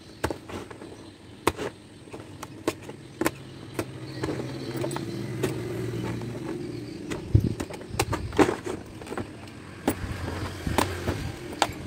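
Sharp clicks and snaps of pliers gripping and tugging the old zipper tape free from a hard-shell suitcase's rim. A motor vehicle's engine hum swells and fades in the background from about four seconds to about seven and a half.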